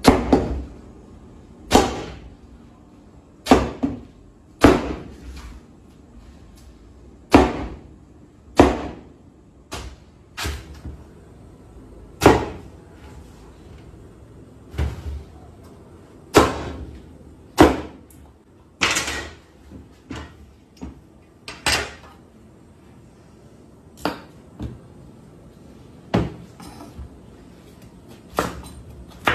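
A large kitchen knife chopping through a raw pumpkin onto a cutting board: a string of separate whacks, each a sharp thud that dies away quickly, coming irregularly every one to two seconds.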